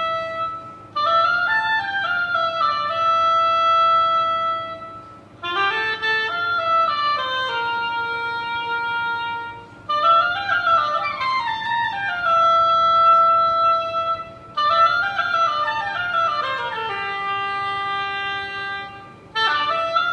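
Solo oboe playing phrases of quick up-and-down runs that settle on long held notes, with brief gaps between phrases every four to five seconds.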